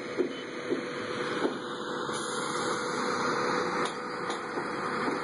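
Excavator engine running steadily, with a light regular clank about twice a second in the first second or so.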